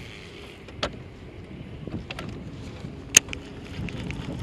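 Steady wind noise over open water, with two sharp clicks, one just under a second in and one about three seconds in, from handling a baitcasting rod and reel during the retrieve.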